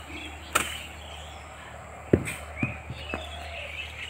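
Birds chirping faintly in the background, cut by a few sharp knocks; the loudest, a dull thump, comes about two seconds in.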